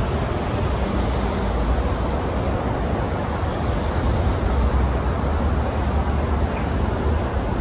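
Freight cars rolling past on the track: a steady low rumble of steel wheels on rail.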